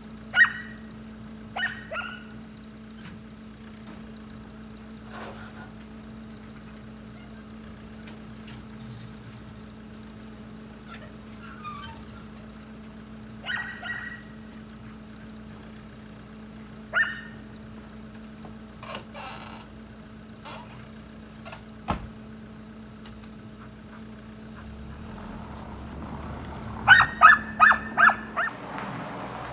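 A dog barking in short, scattered barks, ending with a quick run of about five barks near the end, over a steady low hum.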